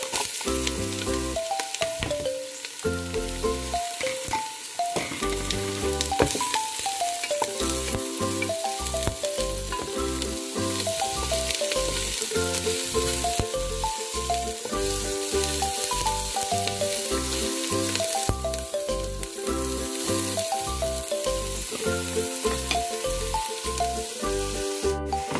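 Diced onions sizzling as they fry in oil in a stainless steel pot, stirred now and then with a wooden spatula. A light tune with a steady beat plays throughout.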